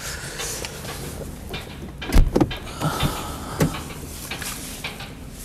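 A thump about two seconds in, then a couple of lighter clicks, as a car's interior fittings are handled.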